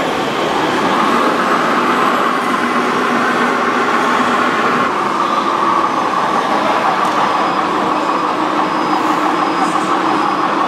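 Radio-controlled scale construction machines running: a steady mechanical whine and rumble of drive motors and gearboxes, with faint short high beeps repeating in the second half.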